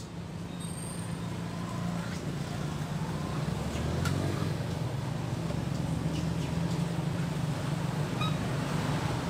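A motor vehicle engine running, a low steady hum that builds over the first few seconds and then holds.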